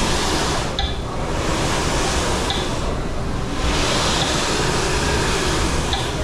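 Snowboard scraping across the moving carpet of an indoor revolving slope machine, the hiss swelling and fading with each turn over the machine's steady low rumble. A short high beep repeats about every 1.7 s: the metronome the rider is timing his turns to.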